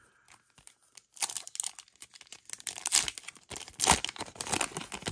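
Pokémon card booster pack wrapper being torn open and crinkled, a run of crackling tears starting about a second in.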